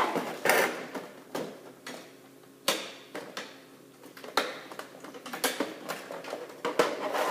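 Irregular clicks and knocks of printer parts being handled and shifted during disassembly, with a sharper knock about two and a half seconds in and another near the end.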